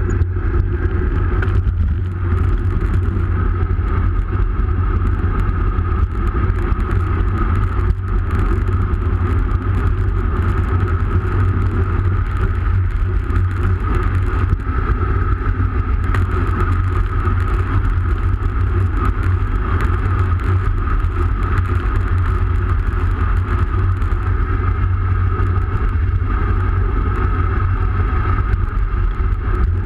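Steady low wind rumble buffeting the microphone of a camera mounted on a moving road bike, with the rolling hum of the bike's tyres on asphalt.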